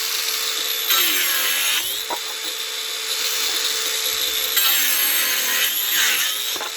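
DeWalt DCG405FN cordless angle grinder with a wood-cutting disc sawing through a board. The motor's steady whine sags in pitch each time the disc bites into the wood, twice, with a loud cutting hiss.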